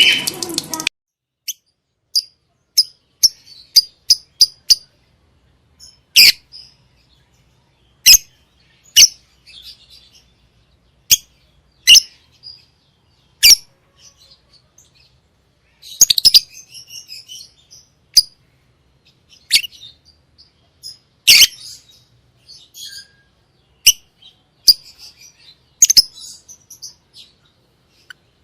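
Lovebirds calling: sharp, high chirps, one at a time every second or two, with a few short runs of rapid twittering.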